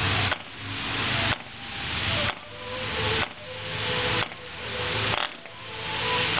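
An ED 3.46 cc Hunter model diesel engine being flick-started by hand on its Top Flite 11x6 wooden prop, about one flick a second, without firing. A loud hiss swells between flicks and drops off sharply at each one.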